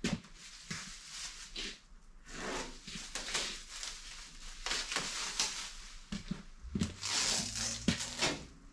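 Plastic masking sheeting crinkling and masking tape tearing as they are pulled off a freshly spray-painted car body, in irregular rustling bursts that are loudest near the end.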